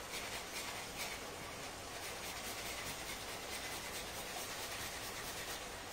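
Whole nutmeg being grated by hand over a bowl, a steady run of soft rasping strokes against the grater.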